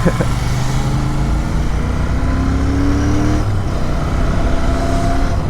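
Motorcycle engine and road and wind noise while riding. The engine note rises steadily, drops about three and a half seconds in, then rises again, like accelerating through a gear change.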